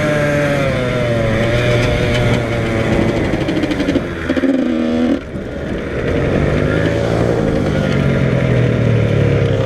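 Yamaha YZ85 two-stroke single-cylinder dirt bike engine running under way at speed, its note rising and falling with the throttle. A little after five seconds in it briefly drops off, then picks up again.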